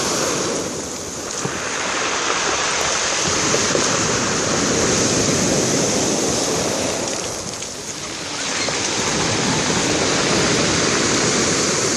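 Black Sea surf washing on the shore, a steady rushing that swells and ebbs, easing twice as waves draw back.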